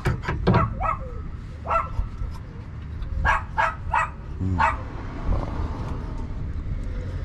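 A small dog yapping in short barks, a quick run near the start and another run about three to four and a half seconds in, over a steady low rumble.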